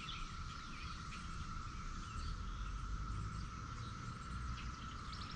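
Outdoor background: a steady, unbroken insect drone, with faint bird chirps and a low rumble of wind or distant traffic.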